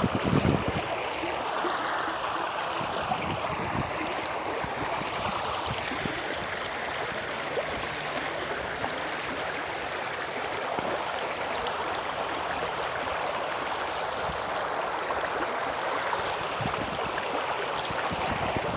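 Creek water running steadily over a shallow crossing, an even rushing babble.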